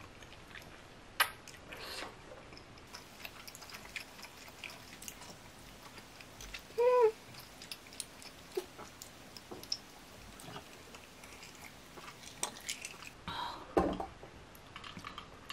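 Close-up eating sounds of someone chewing rosé tteokbokki, with scattered small wet clicks. About seven seconds in there is one short hummed "mm" of enjoyment.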